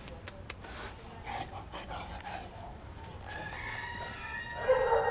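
A few sharp clicks about half a second in, then a long pitched animal call that starts past the middle and grows loudest near the end.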